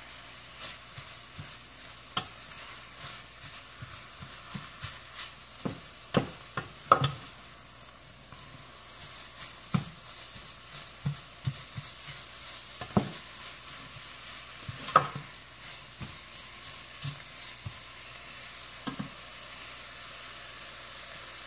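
Chicken sausage, onion and bell pepper frying in a stainless steel skillet with a steady sizzle, while a spatula stirs the mix and knocks and scrapes against the pan at irregular moments, a few knocks sharper than the rest.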